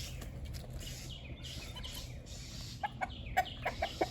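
Young chickens clucking, with a quick run of short clucks near the end, over a steady low background hum.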